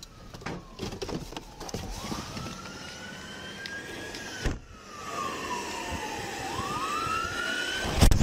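Police sirens wailing, rising and falling slowly, with a second siren overlapping near the end. Light knocks of the body camera being handled come early on, and a loud thump comes at the very end.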